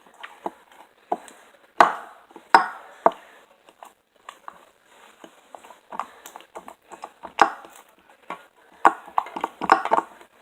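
Slime being mixed by hand in a bowl: irregular small clicks and squelches with several sharper knocks, the loudest about two seconds in and again near the end.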